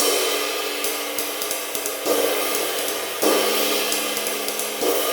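Cymbal struck with glancing accents from the edge with the shoulder of the stick, so that it opens up and rings fully rather than being choked. Three fresh accents land about two, three and nearly five seconds in over a lingering wash, with light ride strokes between them.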